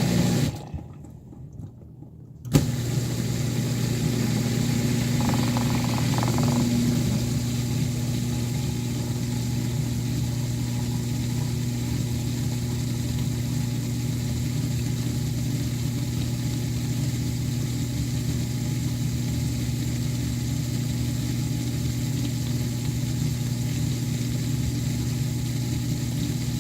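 Miele Diamante dishwasher's circulation pump running with a loud, almost grinding hum. It stops briefly just after the start, cuts back in abruptly about two and a half seconds in, and then runs steadily. The owner suspects a failing circulation pump or motor.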